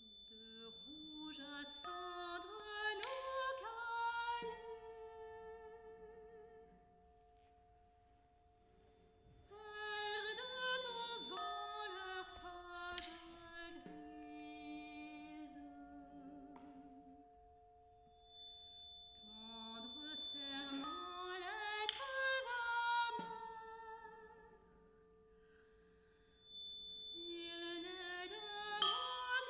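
Soprano voice singing long, sliding phrases in four swells, over steady held tones. There are three sharp knocks, at roughly ten-second intervals.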